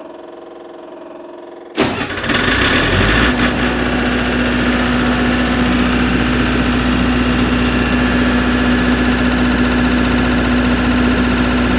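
An MEP-803A military generator's diesel engine is started: a steady hum for the first couple of seconds, then the starter cranks and the engine catches almost at once, about two seconds in, and settles into a steady, even run at constant speed.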